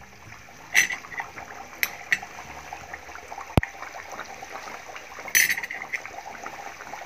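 Aloo puri frying in hot oil: dense, steady sizzling and bubbling, the puri just dropped in and still lying under the oil before it rises. Louder spurts of crackling come about a second in and again near five and a half seconds, and there is one sharp click midway.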